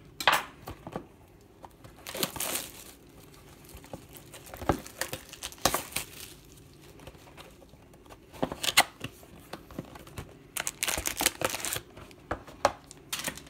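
Plastic shrink-wrap being torn off a trading-card box and crinkled, in irregular bursts of crackling rips, with the cardboard box being opened and its card packs handled.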